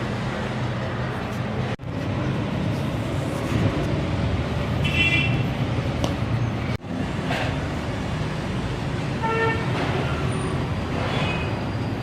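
Road traffic running steadily, with vehicle horns tooting briefly about five seconds in and again near the tenth second.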